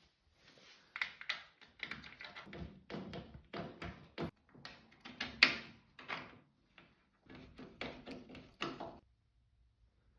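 Irregular clicks, taps and knocks of hands handling plastic and metal parts of a tumble dryer, stopping about a second before the end.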